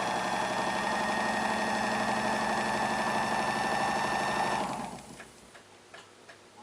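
A small electric motor runs steadily with a whine, spinning a clock balance wheel while its pivot is polished. About four and a half seconds in it switches off and winds down, leaving faint, evenly spaced ticking.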